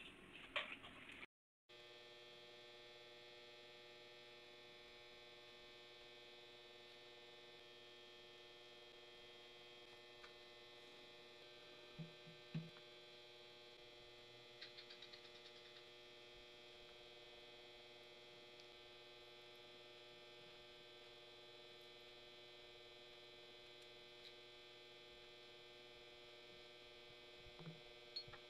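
Near silence with a faint, steady electrical hum. A few soft clicks and taps come from small metal drill-press parts being handled, the clearest two close together about twelve seconds in.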